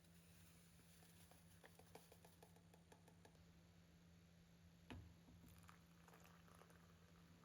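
Near silence: faint room tone with a low steady hum, scattered small clicks, and one soft knock about five seconds in.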